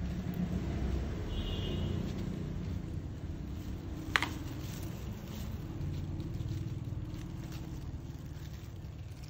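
Soft scraping and rustling of a dye brush and gloved hand working through goat hair, over a steady low background rumble; about four seconds in, one sharp click as the brush knocks against the plastic dye tub.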